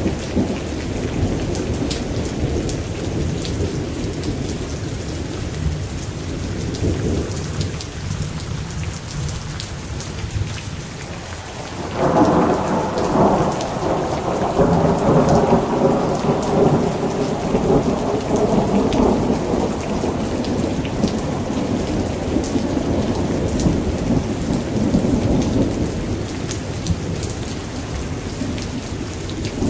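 Steady rain falling, with fine pattering drops and a low rumble of thunder. About twelve seconds in a louder roll of thunder breaks suddenly, then slowly dies away.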